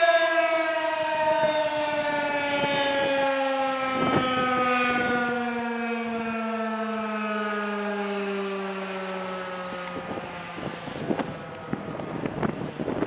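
Federal Signal 2001-SRN/DC electromechanical warning siren winding down at the end of its test, its single tone falling steadily in pitch and fading out about ten seconds in. Gusts of wind on the microphone follow.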